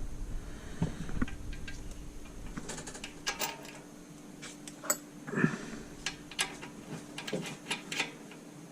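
Scattered light clicks and clinks of hand tools and bolts being worked during assembly, irregular, with a faint steady hum underneath.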